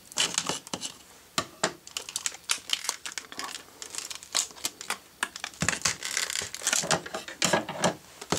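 Stiff clear plastic clamshell packaging crackling and crinkling as it is cut and pried open by hand, in an irregular run of sharp snaps and crackles that gets busier in the second half, with a couple of heavier knocks.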